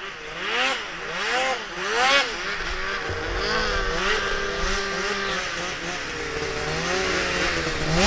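Snowmobile engines revving: quick throttle blips rising and falling about once a second for the first few seconds, then more than one sled's engine running more steadily at different pitches.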